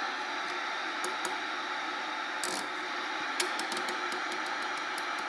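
CB radio receiving an empty band: a steady static hiss from its speaker, broken by scattered faint crackles and pops.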